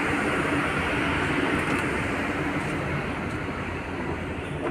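Steady wind and a low machinery rumble on the open top deck of a cruise ship under way, with a faint steady hum.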